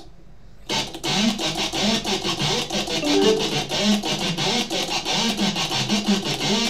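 Electric guitar music with a fast rhythmic riff of sharp, repeated strokes, starting loud a little under a second in.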